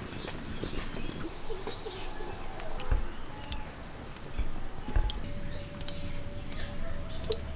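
Outdoor ambience: a steady high-pitched insect trill sets in about a second in, with a few short bird calls and scattered faint ticks.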